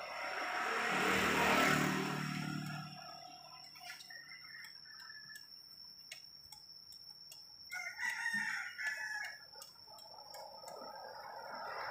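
A rooster crowing, over a steady high-pitched whine and scattered light clicks.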